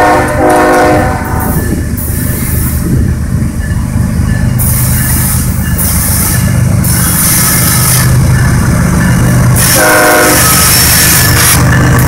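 CSX freight train's lead diesel locomotives approaching and passing close, engines rumbling and growing louder. The air horn sounds briefly at the start and again about ten seconds in.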